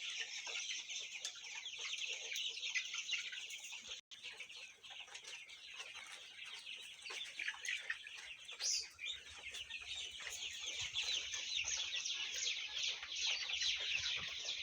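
A large flock of about a thousand month-old colour bird chickens in a poultry shed: a dense, steady chorus of many overlapping high peeps and clucks.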